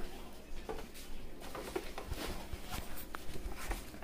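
Gloved hands stuffing chopped vegetables into a raw turkey's cavity: scattered soft rustles, squishes and light clicks of handling.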